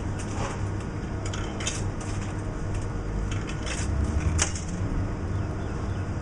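Coins being fed one after another into a vending machine's coin acceptor, a handful of short clinks spread over several seconds.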